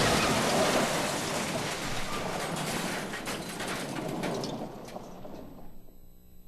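A semi-trailer truck slams into a pickup truck: a sudden loud crash, then several seconds of clattering metal and scattering debris that fade away.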